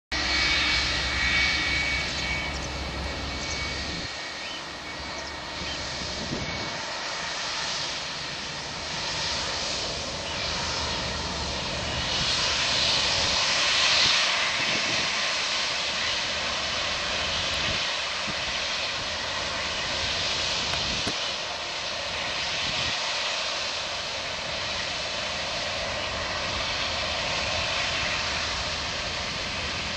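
Boeing 757-200 twin jet engines whining and rushing steadily as the airliner rolls past on the ground, loudest about halfway through as it passes closest.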